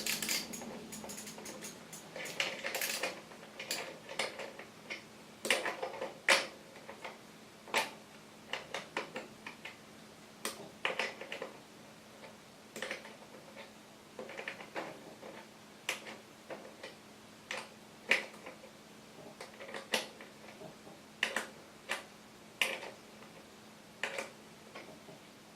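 Socket ratchet on a 14mm socket clicking in short runs every second or two as the bicycle's square-taper crank bolt is undone, with metal tool clinks.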